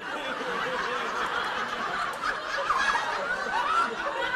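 Stand-up comedy audience laughing at a punchline, many voices at once.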